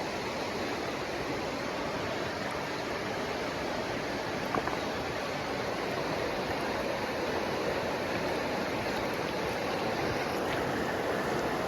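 Steady rush of flowing stream water, with one brief faint knock about four and a half seconds in.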